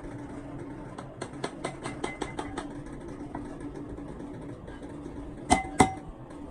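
A steady motor hum with light ticking, then two sharp metal-on-metal strikes that ring, about five and a half seconds in.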